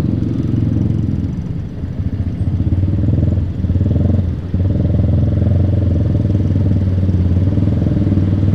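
Motorcycles riding through town traffic: a steady low engine rumble mixed with wind rumble on the microphone, with a brief dip about four and a half seconds in.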